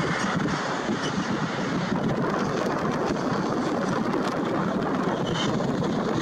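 Boeing 787-9 Dreamliner's jet engines at takeoff thrust as the airliner lifts off and climbs away: a steady, even rush of jet noise.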